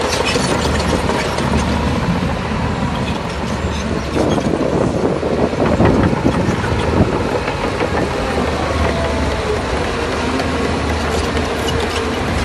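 Heavy earthmoving machinery at work: a large diesel engine running with metallic clanking and rattling, typical of a crawler bulldozer's tracks. The noise grows louder and rougher from about four to seven seconds in.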